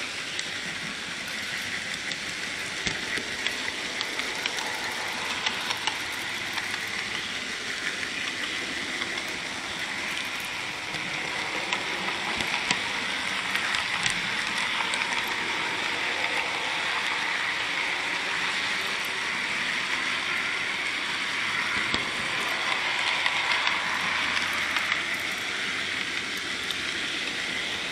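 N gauge model train running along the track, heard from a camera riding on it: a steady whirring hiss from its motor and wheels, with scattered small clicks.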